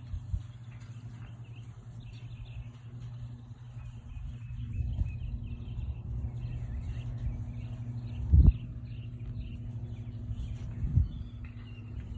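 Electric hot walker for horses running with a steady low motor hum, birds chirping over it. Two dull thumps come a couple of seconds apart in the second half, the first the louder.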